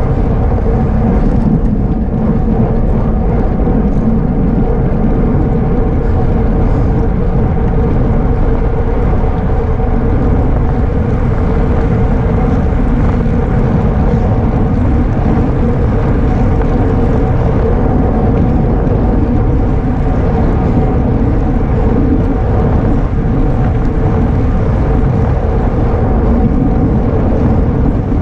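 Loud, steady wind noise on the microphone of a road-bike racer's camera at racing speed, with a steady hum under it.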